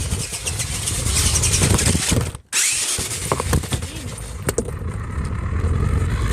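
Remote-control monster trucks driving, their electric motors whirring with brief rising whines and tyres rushing over the ground. The sound drops out abruptly for a moment about two and a half seconds in.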